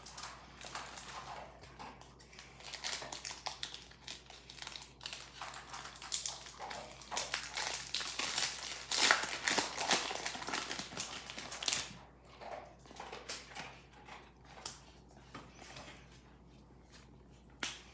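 Foil wrapper of a Pokémon trading-card booster pack being torn open and crinkled: a dense crackling that is strongest about halfway through. Quieter, scattered rustles and ticks follow as the cards are handled.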